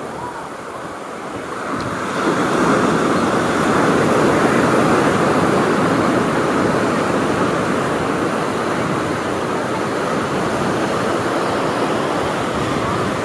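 Ocean surf. A wave breaks about two seconds in, and its foam rushes up the beach in a loud, steady wash of water.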